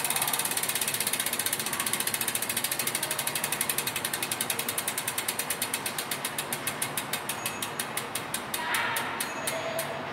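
Campagnolo Shamal Ultra Mega G3 rear hub's freehub ratchet clicking as the wheel freewheels. The clicks start rapid, slow steadily as the wheel spins down, and stop near the end.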